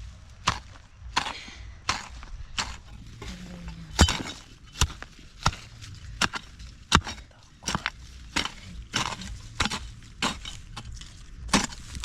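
A steady series of sharp chopping or striking blows, about three every two seconds.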